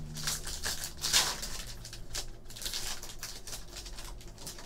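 Foil wrapper of a Fleer Retro basketball card pack being torn open and crinkled by hand: an irregular run of crackles, loudest about a second in.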